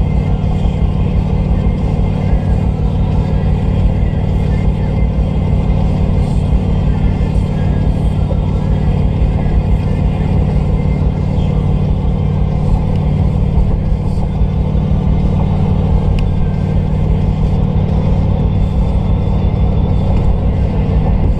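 Steady in-cabin drone of a 2010 Ram 1500 pickup cruising at highway speed: engine hum and tyre and road rumble, unchanging.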